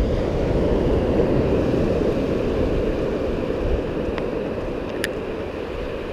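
Steady rumble of wind on the microphone over the surf on the beach, easing slightly toward the end, with two faint clicks about four and five seconds in.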